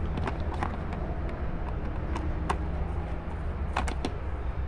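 Scattered light clicks and ticks of a screwdriver turning out small screws from the plastic dashboard of a child's ride-on electric jeep, over a steady low background rumble.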